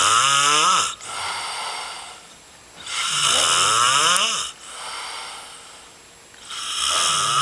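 Rhythmic snoring, loud and rasping, rising in pitch through each snore. Each snore lasts about a second and comes every three and a half seconds or so, with a softer breath out between; the third begins near the end.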